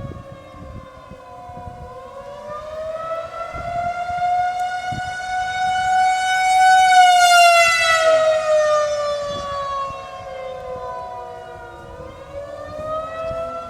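Outdoor tornado warning siren sounding a steady wail. The tone swells louder and slightly higher until about seven seconds in, then fades and drops, and begins to swell again near the end, as the siren's rotating horn sweeps toward and away from the listener.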